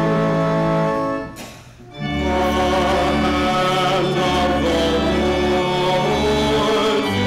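Church music: an organ holding sustained chords with deep bass notes, with singing over it. About a second in the music breaks off for under a second, then resumes.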